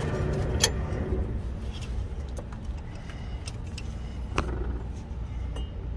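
Small metallic clicks and scrapes of a Cummins ISX15 oil pressure sensor being unscrewed by hand, with one sharp click under a second in and another after about four seconds. A steady low rumble runs underneath.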